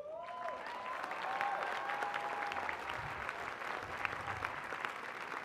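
Large audience applauding: dense clapping that starts suddenly and holds steady.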